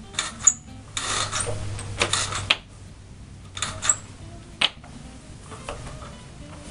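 Horizontal window blinds being worked by hand: slats rattling and the cord mechanism clicking in several bursts, with the longest clatter lasting over a second, about a second in, and a sharp click a little past the middle.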